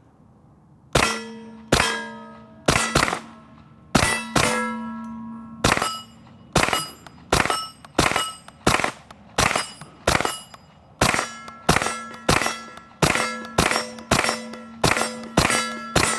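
Stribog SP9A3G 9mm carbine firing a fast string of about two dozen shots of 124-grain NATO-spec ball, some as quick double taps, each hit answered by the ringing clang of steel plates and gongs.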